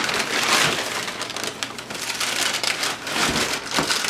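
Packing material rustling and crinkling with many small crackles as it is pulled and torn out of a shipping box, with a couple of knocks near the end.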